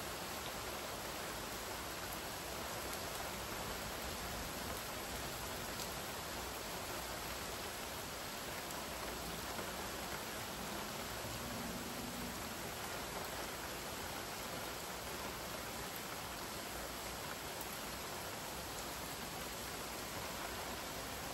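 Steady rain falling: an even hiss, with a few faint drop ticks now and then.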